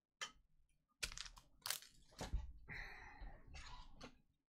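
Trading cards being handled and gathered up off the table, rustling and crinkling in irregular bursts that start about a second in.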